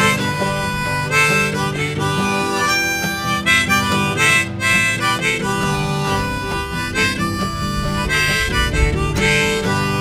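Harmonica played in a neck holder, taking a melodic solo over a strummed acoustic guitar: an instrumental break between sung verses.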